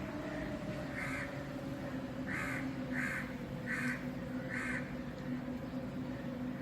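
Wind blowing with a steady low tone that drifts slowly down in pitch, and a crow cawing five times between about one and five seconds in.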